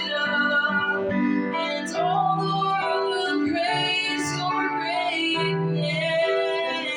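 A worship song: female voice singing sustained, gliding notes over keyboard accompaniment.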